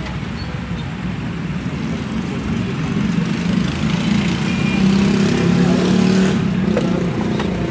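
Road traffic: a vehicle engine's steady hum that grows louder in the middle and eases off near the end, over a general street noise.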